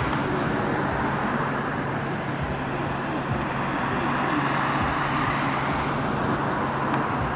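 Steady vehicle noise: an engine running with a constant low hum under a broad, even rushing noise.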